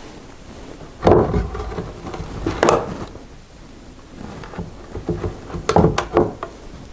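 Hinged wooden lid of an old dressing table being lifted open and lowered shut: a wooden knock and scrape about a second in, a click shortly after, and a few sharp knocks as it closes near the end.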